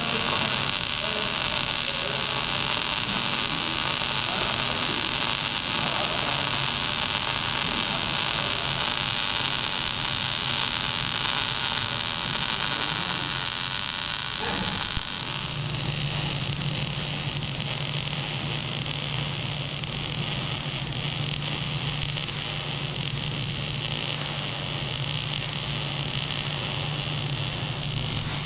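Electric arc welding on steel plate: a steady hiss and crackle of the welding arc. About halfway through the sound shifts and a low steady hum joins it.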